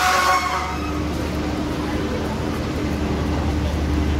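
Steady low hum of a diesel passenger train standing at the platform, with a faint steady tone above it. Voices are heard briefly at the start.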